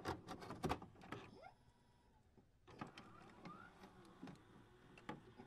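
Faint sound effects for an animated loading screen: scattered clicks and ticks, with a couple of short rising chirps, and a pause of about a second in the middle.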